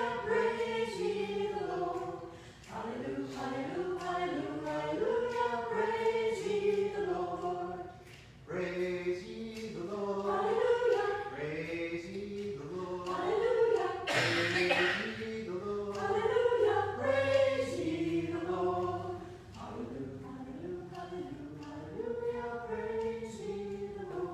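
Small mixed choir of women's voices and a man's voice singing together, phrase by phrase, with short breaks between phrases.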